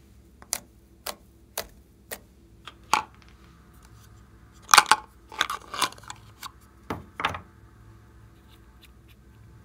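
Slime being pressed and handled, giving a series of sharp, irregular sticky clicks and pops, with the densest cluster about halfway through.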